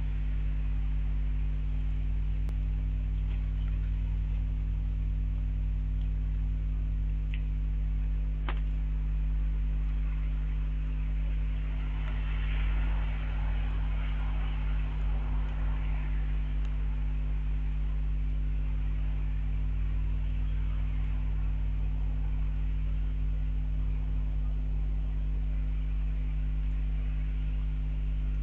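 Steady electrical mains hum with a faint hiss behind it, picked up by the webcam's audio. One sharp click sounds about eight seconds in, and the hiss swells briefly a few seconds later.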